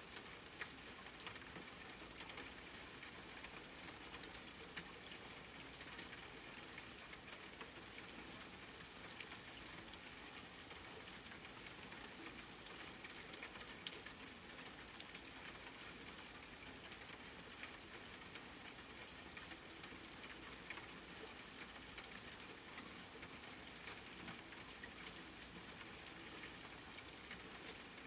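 Steady rain falling, a soft even hiss with scattered drops ticking on a surface.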